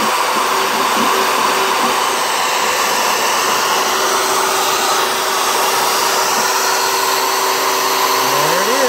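CNC router spindle running steadily with a constant whine. Near the end a tone rises and then falls as the machine's axis motors speed up and slow down, moving the gantry.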